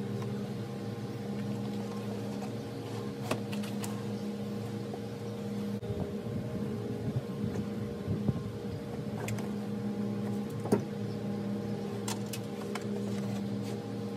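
A steady mechanical hum with several even pitches, and scattered sharp clicks over it, busiest in the middle.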